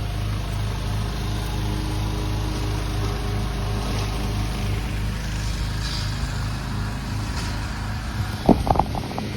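A small engine running steadily with a regular low pulsing. A short pitched sound breaks in about eight and a half seconds in.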